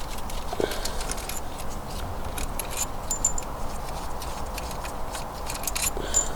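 Light metallic clinks and ticks of bolts and camshaft bearing caps being handled, over a steady low rumble.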